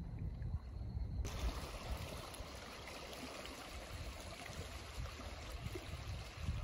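Wind gusting on the microphone, then from about a second in a steady wash of small waves lapping at the lakeshore, with the low wind gusts continuing underneath.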